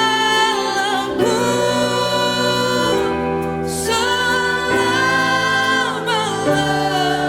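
Worship song: singers and choir holding long sung notes over band accompaniment, with short breaks between phrases about every two to three seconds.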